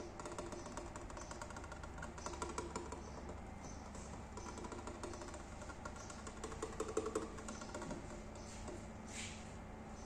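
Tabby cat growling in long, low, pulsing stretches, with a short hiss about nine seconds in: a defensive warning.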